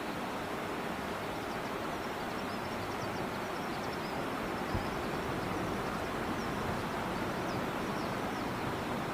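Steady rushing of flowing river water, with faint high chirps scattered through it and one soft low bump about halfway.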